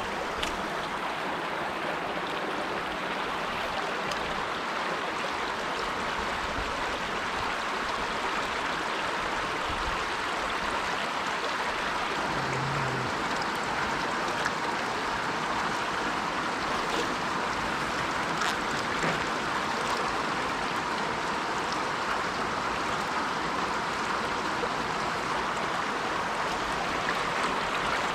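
Mountain stream water rushing steadily over rocks, an even, unbroken rush with a few faint clicks.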